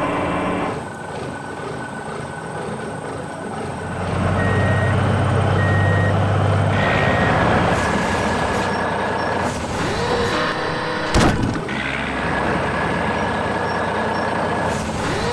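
Heavy diesel quarry machinery running. About a third of the way in the engine note deepens and a reversing alarm beeps three times, about a second apart. A single sharp knock sounds near the three-quarter mark.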